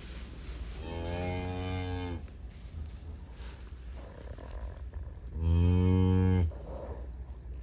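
Galloway cow mooing twice, a lower call about a second in and a louder one about five and a half seconds in, each lasting about a second.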